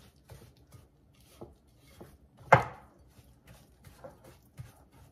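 A silicone spatula stirring and scraping softened butter, sugar and egg in a glass mixing bowl, with soft irregular scrapes and taps. About halfway through comes one sharp, loud knock.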